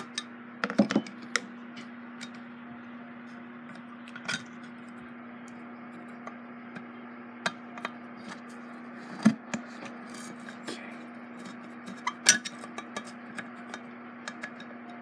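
Scattered metallic clicks and clinks of a hand tool working among the metal parts inside an Emerson 77648 fan base, with a steady low hum underneath.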